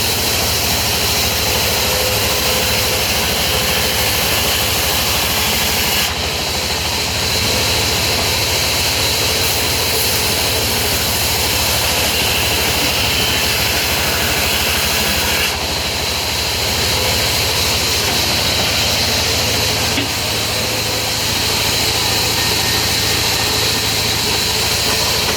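Sawmill machinery running steadily, a constant low engine hum under a loud hiss; the sound shifts abruptly about six seconds in and again about two-thirds of the way through.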